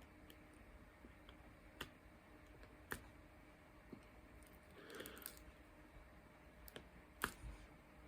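Near silence broken by a few faint, scattered clicks and taps, with a soft rustle in the middle, from small pieces being placed on a diamond-painting canvas.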